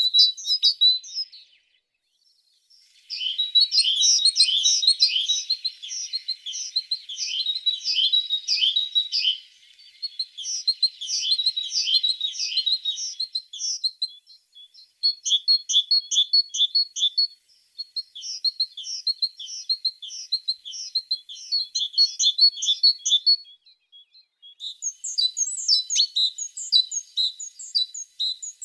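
A tit singing: long, rapid runs of high, quick chirping notes, broken by brief pauses of a second or two.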